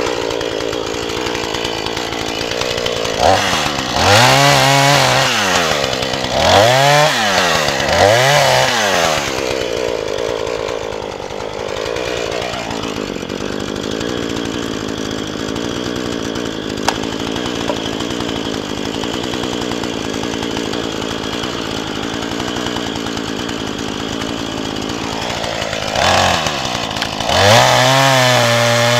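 Two-stroke chainsaw running, revved up and down three times in quick succession, then held steady while cutting into a birch log. It climbs to full throttle again near the end.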